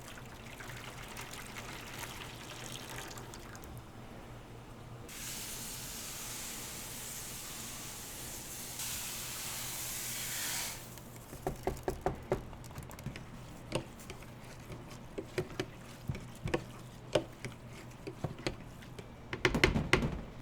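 Water running from a kitchen tap for about five seconds, then cut off. After it, a string of sharp clicks and knocks, utensils and containers being handled, ending in a louder clatter.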